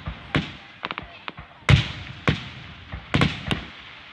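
Fireworks grand finale: aerial shells bursting in quick succession, about nine sharp booms with echoing tails, the loudest about a second and a half in.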